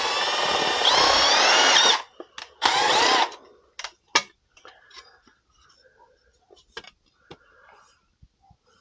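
Power drill running under load, drilling screw holes through the furnace's sheet metal to mount the inducer plate. It stops about two seconds in, runs again in one short burst about a second later, then gives way to a few light clicks and taps of handling.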